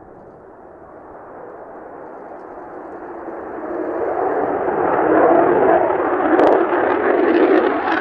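Mitsubishi F-2A fighter's single F110 afterburning turbofan at take-off power as the jet climbs out. A rushing jet noise grows steadily louder and brighter as it closes in, loudest from about halfway through.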